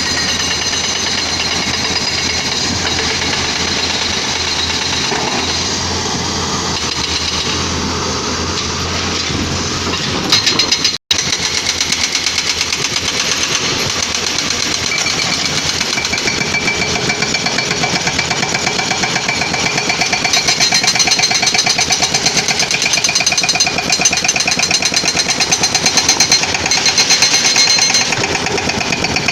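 Caterpillar 320D excavator's diesel running steadily. After an abrupt cut about eleven seconds in, a fast, even hammering carries on over the engine, typical of an excavator-mounted hydraulic breaker.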